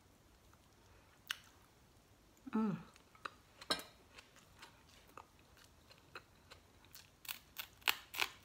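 Close-up chewing of crispy fried fish: sharp crunches scattered through, coming quickly near the end. A short hummed "mm" about two and a half seconds in.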